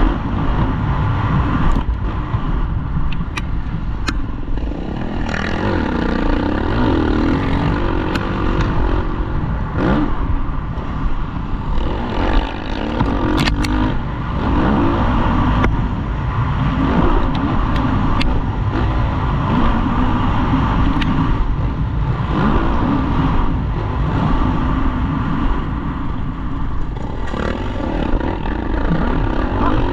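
Motocross dirt bike engine heard from on board, revving up and down continuously through a lap of the track. A few sharp clatters sound as the bike goes over bumps.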